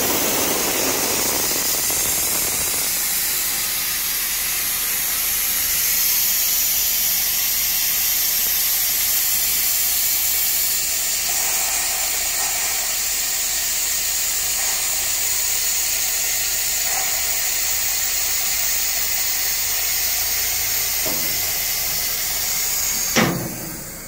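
Compressed air hissing steadily out of the release valve on a Handy S.A.M. 1200 air lift table, emptying its big airbag as the table lowers. The hiss cuts off abruptly with a single knock near the end.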